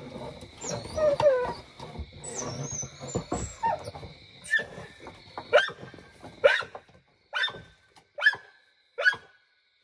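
American bully dog barking: short sharp barks about once a second through the second half, after a more irregular stretch of yelps and whines.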